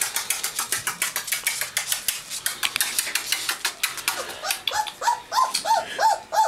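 Rapid light clicking of a young presa canario puppy's claws on a hard floor, then from about two-thirds of the way in a run of short whimpering yelps, about three a second.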